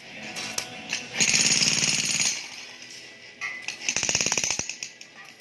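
Jackhammer hammering into wood in two bursts of rapid strokes, the first about a second in and the second near four seconds, with a pause between.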